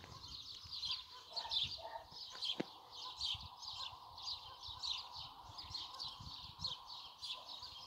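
Small birds chirping: a steady run of short, high, quick chirps, several a second, with low rumbling on the microphone underneath.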